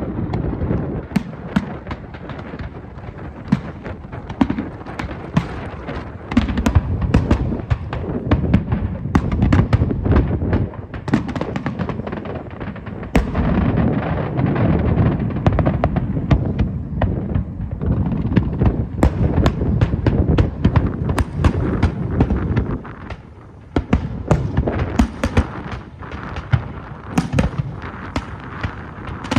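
Aerial fireworks display: a dense, unbroken run of sharp shell bursts and crackling reports over a continuous rumble of booms, easing briefly about three-quarters of the way through before picking up again.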